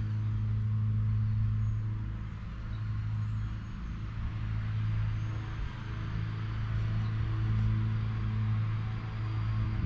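A motor running with a steady low hum that swells and eases slightly in loudness.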